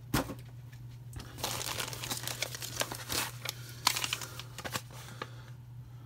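Plastic and foam packaging crinkling and rustling as it is handled and moved aside, with a knock at the start and a sharp click about four seconds in.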